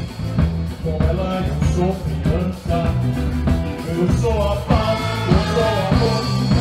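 Live samba rock band playing: drum kit and bass keep a steady groove under singing, and a horn section of trumpets and trombone comes in about four and a half seconds in.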